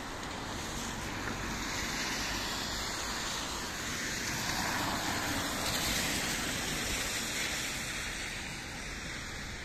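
Steady rushing noise of riding a bicycle along a rain-soaked street: wind on the microphone mixed with the hiss of the wet road, swelling a little in the middle.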